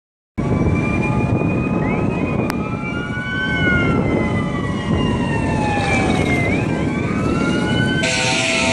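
Several sirens wailing together, their pitches slowly rising and falling and crossing one another, over a heavy low rumble.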